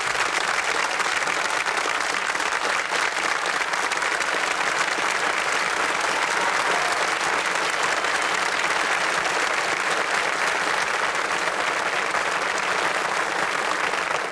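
Television studio audience applauding, a dense, even clapping.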